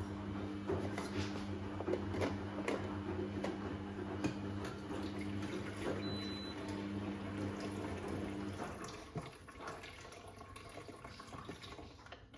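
Water running from a kitchen tap, with scattered clinks, easing off about two-thirds of the way through.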